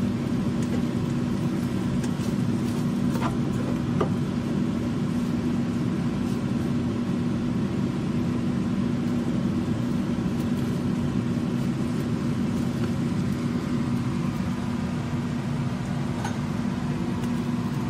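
Steady mechanical hum of a kitchen appliance, with chicken pieces sizzling in a nonstick wok and a few light clicks of the spatula against the pan.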